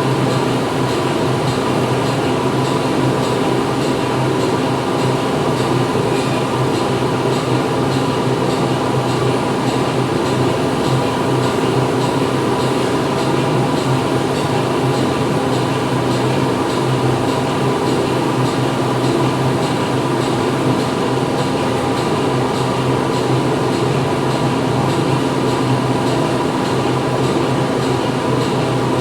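Factory interior ambience: machinery running with a steady, unbroken hum and whir, several constant tones over a dense mechanical noise.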